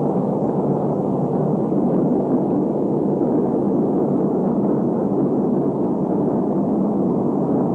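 Lockheed Super Constellation test aircraft, with an Allison turboprop in its number 4 engine position, running its propeller engines while taxiing: a steady, dull engine noise with little treble.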